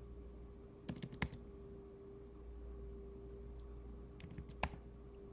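A few computer keyboard keystrokes in two short clusters, about a second in and again near the end, over a faint steady hum.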